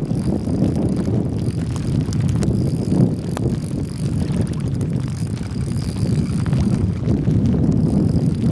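Wind buffeting the microphone in a steady low rumble, over choppy lake water.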